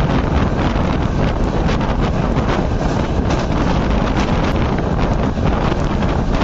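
Wind rushing over the microphone at the open door of an express train running at speed. The rumble of the coach's wheels on the rails runs underneath, with a few faint ticks.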